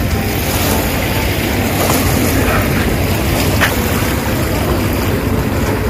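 Steady rush of wind and small waves lapping at a harbour shoreline.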